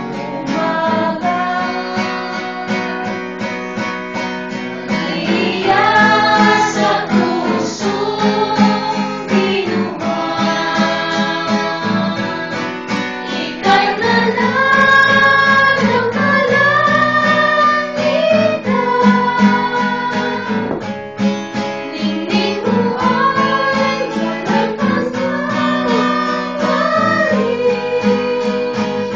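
Singing accompanied by a strummed acoustic guitar, a melody with long held, wavering notes over a steady strum.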